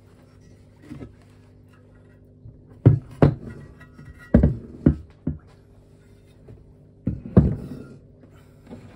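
Heavy RX-8 13B engine rear housings handled on a workbench: about seven knocks and thuds as they are turned over and laid flat. The knocks come in three clusters, about three seconds in, around five seconds, and near seven seconds.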